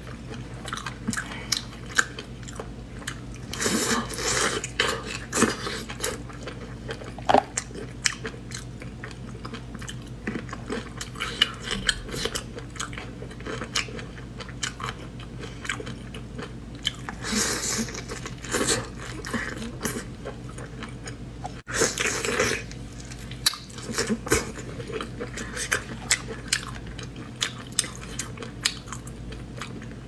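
Close-up eating sounds of whole prawns: shells cracked and peeled by hand, with bites, crunching and wet chewing coming in scattered clusters of clicks and crackles.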